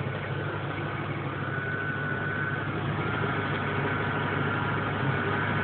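Ford Mustang engine idling steadily, its level creeping up slightly, while the freshly refilled cooling system circulates coolant so air can be burped out.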